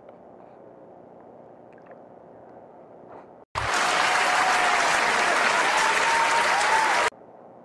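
Faint, steady outdoor background, then about three and a half seconds in a loud burst of crowd applause that starts and cuts off abruptly, lasting about three and a half seconds: a dubbed-in applause sound effect.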